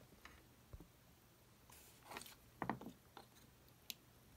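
Near silence, broken by a few faint scrapes and clicks of a small plastic part being worked with a blade, the loudest a short scrape about two-thirds of the way through and a sharp click near the end.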